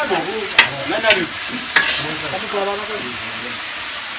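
Tenrec meat frying and sizzling in a large aluminium pot over a wood fire as it is stirred, with three sharp clanks of the utensil against the pot in the first two seconds.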